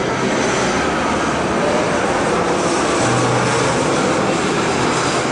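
Twin-engine jet airliner on final approach with gear down, passing low overhead: a loud, steady jet roar with a faint high whine.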